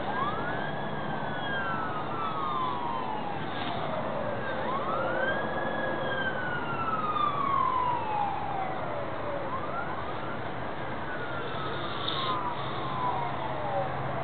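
Emergency vehicle siren in a slow wail: each cycle sweeps quickly up in pitch and then slides slowly down, repeating about every five seconds, over a faint low hum.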